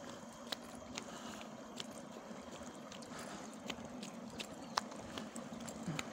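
Footsteps of someone walking, short sharp clicks about twice a second, over a steady faint hiss.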